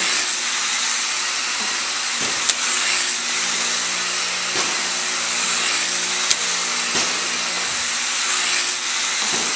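Small electric model airplane's motor and propeller whirring steadily as it circles on its tether over the turning table. A sharp tick comes about every four seconds, twice, once per revolution.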